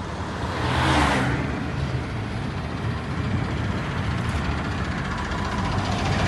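Vehicle engine running steadily with road noise, and a brief rush of noise about a second in.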